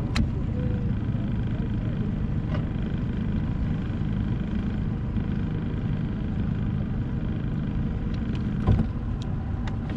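Boat's outboard motor running steadily at low, idle-like speed, a constant low hum. One short thump sounds near the end.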